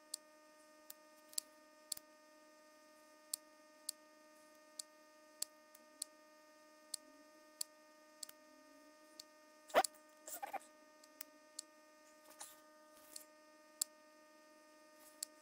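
Faint steady electrical hum made of several even tones, with scattered sharp clicks every second or so and a few louder clicks about ten seconds in.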